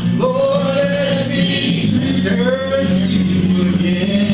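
Voices singing a gospel song over a steady bass accompaniment: one long held note, then a new phrase about two seconds in.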